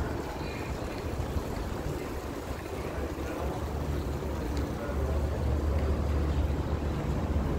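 Wind buffeting a phone's microphone: an uneven low rumble over a general outdoor noise, swelling about five seconds in.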